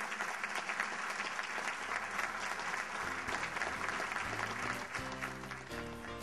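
Audience applauding, with instrumental music fading in about halfway through and growing as the clapping eases.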